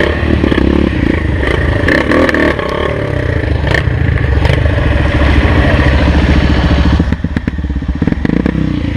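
Off-road motorcycle engine running on a steep trail climb, its sound dipping briefly about seven seconds in. Knocks and a scraping clatter sound over it as the bike rubs and bumps through the trail.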